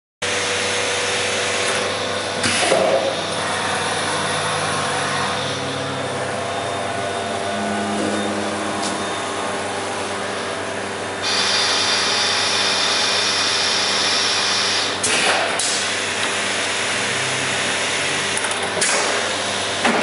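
Multi-spindle CNC router milling bubinga wood: the spindles and cutters run with a steady noisy whine, a higher hiss joining about halfway through, with a few brief louder bursts of cutting.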